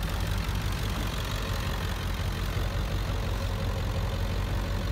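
Ford 7.3 L Powerstroke V8 turbo-diesel idling steadily.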